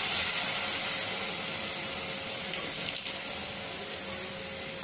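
Drumstick flowers stir-frying in a pan hiss and sizzle as a little water is sprinkled over them by hand to steam them. The hiss slowly dies down.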